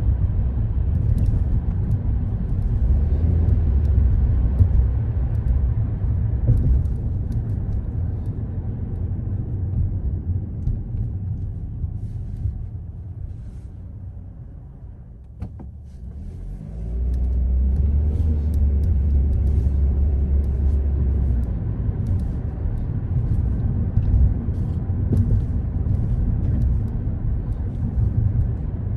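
Car driving on city streets: a steady low rumble of engine and road noise that dies down around the middle as the car slows and stops, then builds again as it pulls away.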